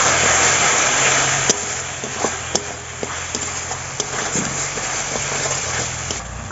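Onion-and-spice masala frying in oil in a large metal kadai while a metal spatula stirs it, scraping and clicking against the pan. The sizzle is loudest for the first second and a half, then eases to a lower hiss broken by sharp clicks of the spatula. A steady low hum runs underneath.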